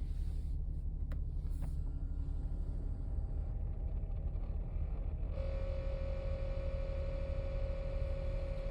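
A steady whirring, growling tone from inside the dashboard of a 2012 Nissan Pathfinder R51 comes on suddenly about five seconds in, over the low rumble of the running vehicle, after a couple of faint clicks. It is an unidentified noise in the heating and ventilation system that comes only once the car is warmed up and stops when the HVAC is switched off; the owner rules out the blower fan and the mode actuators.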